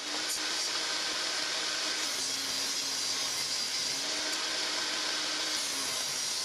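Table saw running and ripping pine bed slats lengthwise: a steady motor and blade noise whose pitch sags slightly now and then as the blade takes the wood.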